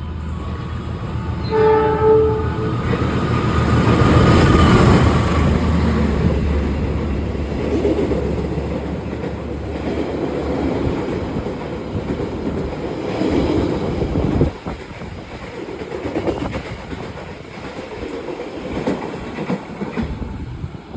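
KA Sembrani express passenger train passing at speed. The locomotive sounds a short horn blast about two seconds in, then its engine and the carriages go by loudly with wheels clattering over rail joints. The sound drops off sharply about two-thirds of the way through and fades to a lighter rumble.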